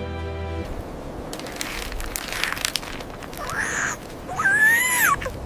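Rustling and crinkling, then two high-pitched, wavering cries from a young panther cub near the end, the second one louder.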